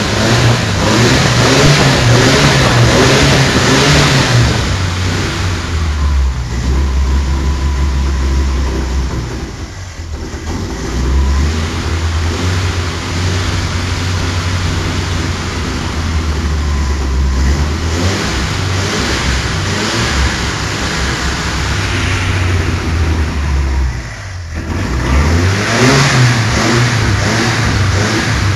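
A 1980 Chevrolet Opala Comodoro's naturally aspirated four-cylinder engine being revved and held at raised revs. It drops back briefly twice, about ten seconds in and again near 24 seconds, and picks up again near the end.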